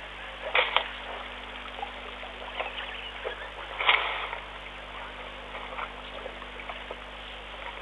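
Elephants moving in wet mud and shallow water, with two short splashing, squelching sounds, about half a second in and about four seconds in, and scattered small wet sounds, over a steady low electrical hum.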